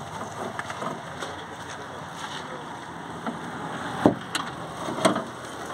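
Long screwdriver levering against the inside of a Maruti WagonR's sheet-metal boot lid to push out a dent, giving a few sharp metallic clicks and knocks, the loudest about four seconds in, over a steady background hiss.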